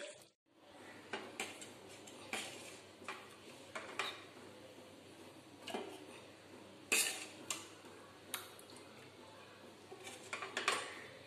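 A stainless steel ladle clinks and scrapes against a steel pan and a steel bowl as curry is scooped out. The clinks are light and scattered, with the loudest about seven seconds in and a quick cluster near the end.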